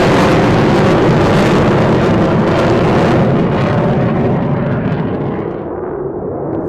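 Jet noise from a twin-engine F-22 Raptor in flight, a loud, steady rush that fades as the jet flies away. The high hiss dies out about five to six seconds in, leaving a lower rumble.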